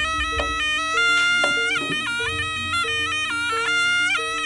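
Jaranan ensemble music led by a slompret, a shrill Javanese double-reed shawm, playing a wavering, stepping melody over a lower repeating two-note accompaniment.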